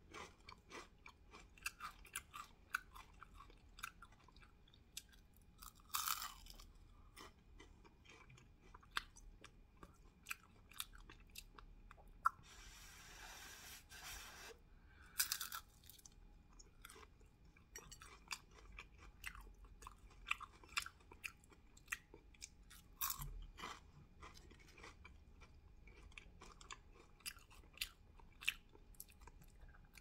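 Close-miked chewing of a crispy spring roll: many small crackles and wet mouth clicks as the wrapper is crunched, with a few louder crunches scattered through.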